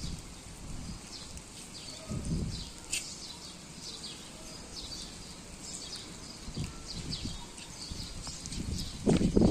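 Small birds chirping in many short, quick, high calls, with a few dull low thumps and a louder low rumble starting near the end.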